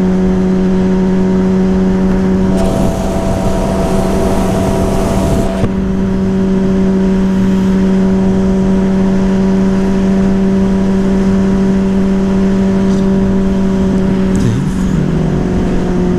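Yamaha Fazer 600's inline-four engine running at a steady, unchanging speed through its WR slip-on exhaust, with a rush of noise from about three to six seconds in. The owner says it is running unusually fast and sounding strange, and suspects a loose air filter or bad fuel.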